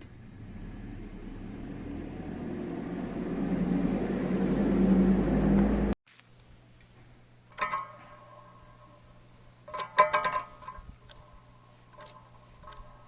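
Sirocco-type bathroom exhaust fan running, its noise growing steadily louder for about six seconds until it cuts off suddenly. Then a quieter steady low hum, with a few sharp clinks, one of them loud, about halfway through.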